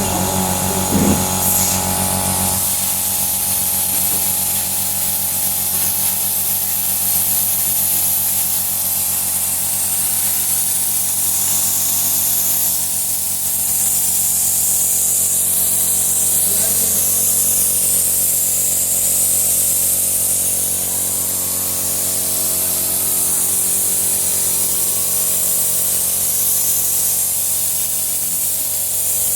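A 30-litre air compressor running steadily, with a motor hum and a high hiss of air; the hiss grows louder from about a third of the way in to about two-thirds through.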